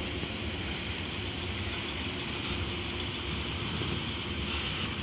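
Freight train of loaded hopper wagons rolling past, its wheels making a steady rumble on the rails.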